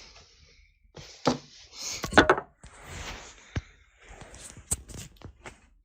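Handling noise close to the microphone: scattered knocks and clicks over rustling, the sharpest cluster of knocks about two seconds in.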